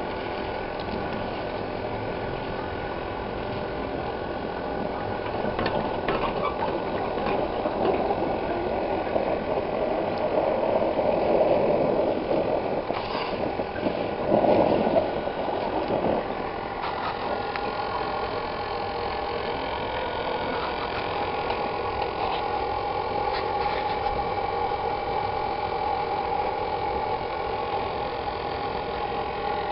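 Small engine running steadily, fed through a pipe from a homemade downdraught wood gasifier. Louder rustling and scraping of wood chips being stirred comes in the middle.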